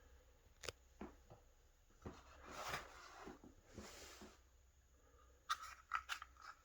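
Faint handling noise: a couple of sharp clicks, two soft rustling swishes, then a quick run of clicks near the end.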